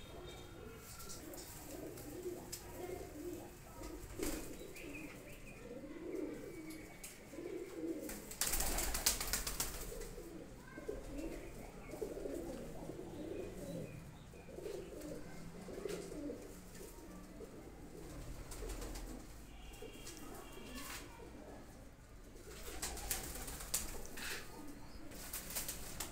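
Domestic pigeons cooing over and over, with a loud burst of wing flapping about a third of the way in and more flapping near the end.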